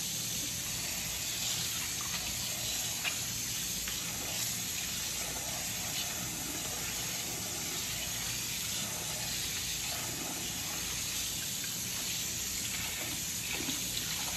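Kitchen tap running in a steady stream into a bowl of shredded green papaya and carrot in a stainless steel sink, the water splashing over the shreds as hands rinse them. The flow cuts off suddenly at the very end.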